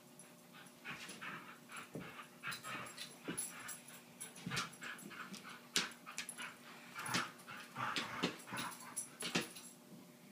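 Two dogs, a corgi puppy and a larger dog, at play, giving a string of short yips and whimpers mixed with brief sharp sounds.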